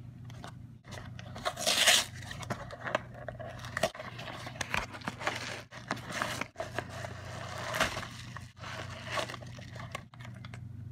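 Cardboard box and bubble-wrap packaging handled and unpacked by hand: irregular rustling, scraping and crinkling, loudest about two seconds in, over a steady low hum.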